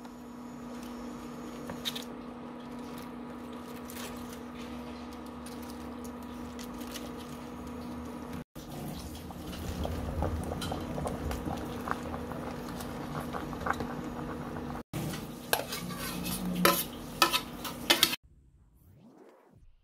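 Kitchen clatter over a steady hum: metal utensils and dishes clink against a stainless steel cooking pot as vegetables are tipped in. A quick run of loud, sharp clinks comes near the end.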